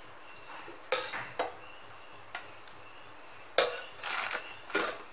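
Metal kitchen utensils clinking and clattering against a stainless steel bowl: about half a dozen sharp, irregularly spaced clinks, the loudest about three and a half seconds in.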